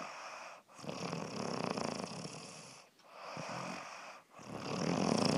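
Pomeranian snoring in its sleep: noisy breaths, each one to two seconds long, with short pauses between them, the last one loudest.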